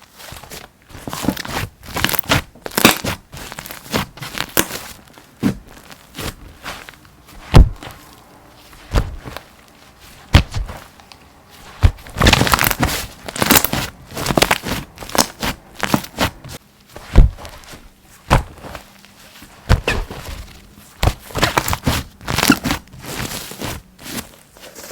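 Slime being squeezed, poked and stretched by hand, giving an irregular run of sharp clicks and pops, with dense flurries of crackling about halfway through and again near the end.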